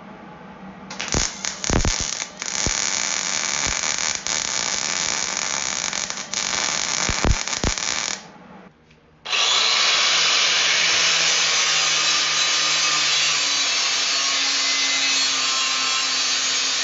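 MIG welder crackling as it fills old holes in a steel fender against a copper backing paddle, with sharp pops and a few stops and restarts. About nine seconds in, an angle grinder starts and runs steadily as it grinds the welds flush.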